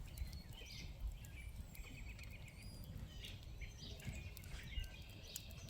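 Small birds chirping and calling in the background over a low, steady outdoor rumble.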